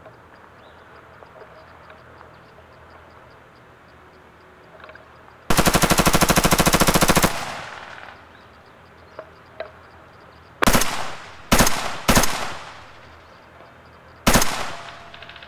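Airsoft rifle firing on full auto: a rapid rattle lasting just under two seconds about five seconds in, then four short bursts a few seconds later.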